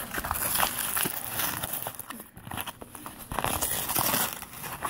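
A cardboard shipping box being torn open by hand: irregular scraping, rustling and tearing of cardboard and packing tape, with small knocks, easing off briefly near the middle.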